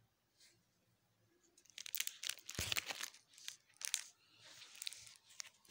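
Photo album pages and their plastic photo sleeves crinkling and rustling as they are handled and turned. It is a run of crackly bursts starting about two seconds in, with a sharp click partway through.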